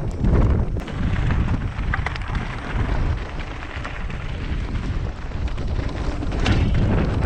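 Mountain bike riding over a rough rocky trail heard through a rider-mounted camera: wind buffeting the microphone over the rumble of the tyres, with frequent rattles and sharp clicks from stones and the bike.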